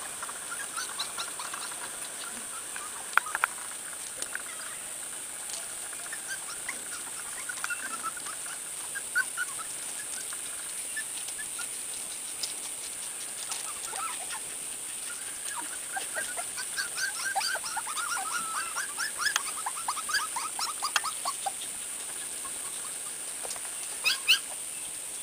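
Pembroke Welsh Corgi puppies whimpering and yipping in short rising-and-falling whines, scattered throughout and busiest in the middle stretch. A couple of sharp clicks come about three seconds in and near the end.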